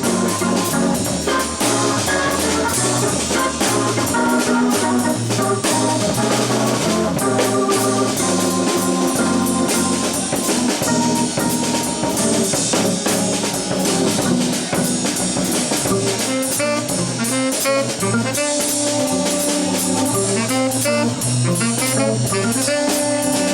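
A jazz trio playing live, with the drum kit and cymbals driving under the melodic lines. About two-thirds of the way in, a clearer run of separate melody notes comes forward.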